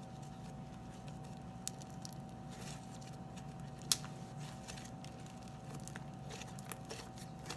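Faint squishing and crackling of fluffy slime being stretched and pressed by hand, with scattered small clicks and one sharper click about four seconds in, over a steady low hum.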